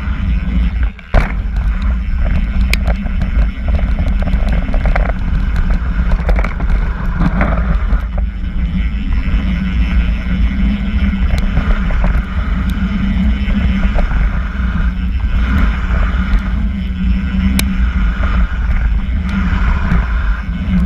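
Wind buffeting a seatpost-mounted GoPro on a mountain bike riding down a gravel flow trail, over the rush of tyres rolling on gravel, with scattered clicks and rattles from the bike. A sharp knock about a second in.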